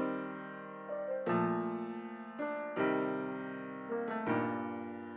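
Background music: soft piano-like keyboard chords struck about every second and a half, each ringing out and fading, with lighter single notes between them.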